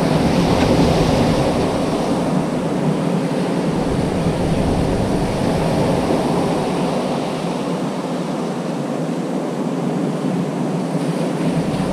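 Choppy sea waves washing onto the beach, with wind buffeting the microphone; a steady, fairly loud rush that swells and eases slowly.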